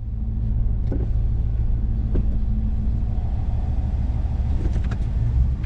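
A car running: a steady low rumble with a few light clicks over it.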